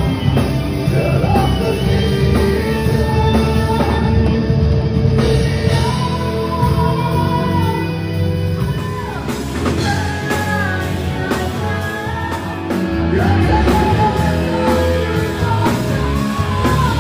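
Rock band playing live: a male singer holding high notes over electric guitars, bass guitar and drums.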